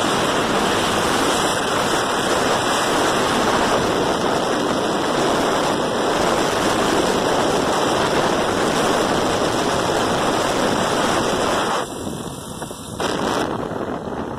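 Steady wind noise rushing over the phone microphone on a moving mini motorbike, with no clear engine note through it. The noise dips for about a second near the end.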